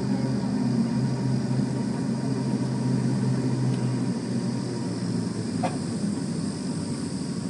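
Eizan Ropeway cable car cabin heard from inside, with a steady low hum from its running gear on the rope that shifts slightly about four seconds in. A brief high squeak comes about five and a half seconds in.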